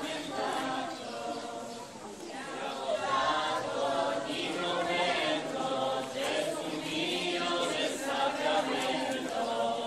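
A crowd of people singing a Eucharistic devotional hymn together in a slow, chanted style, a refrain praising the Blessed Sacrament.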